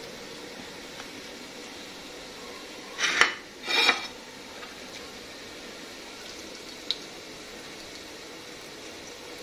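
Steel mixing bowl and plates being handled while ground onion and green chillies are squeezed out by hand: two short, loud bursts of noise about three and four seconds in, then a single light click near seven seconds, over a steady low hiss.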